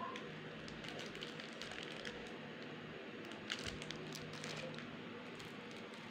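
Faint handling noise: scattered light clicks and rustles, over a steady low hum.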